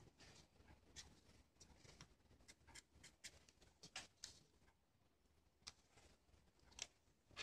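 Felt-tip marker drawing on folded origami paper: faint, short scratching strokes, one after another, with a few sharper ones near the end.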